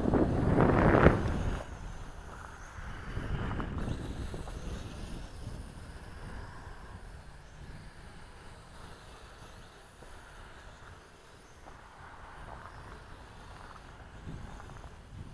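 Wind buffeting the microphone, loud for about the first second and a half and then easing to a low, steady rush.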